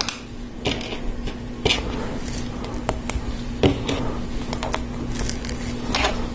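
Plastic LEGO Technic pieces clicking and tapping as they are handled and fitted onto the model, with several sharp separate clicks spread through.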